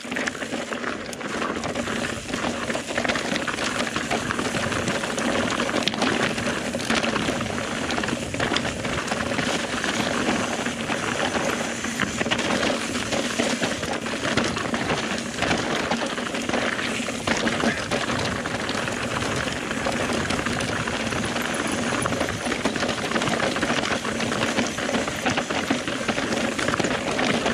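Mountain bike descending a rough, rocky trail at speed: tyres rumbling and the bike clattering over rocks, with many small knocks and a constant rushing noise.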